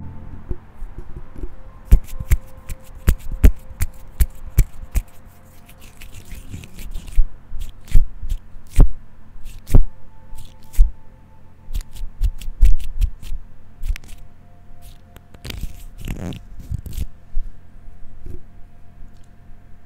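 Handling noise from a Zoom H8 recorder as picked up by its own XYH-6 X/Y microphone capsule: irregular loud clicks, taps and scrapes of fingers on the recorder and capsule, with a longer scrape near the end.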